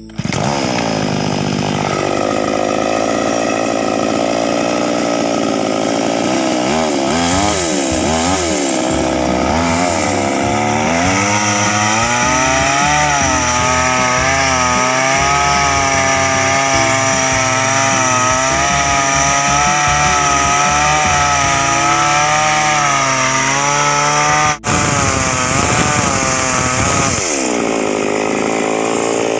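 Chainsaw running hard while cutting wood, its engine pitch wavering and dipping as the chain bites. There is a momentary break about two-thirds of the way through.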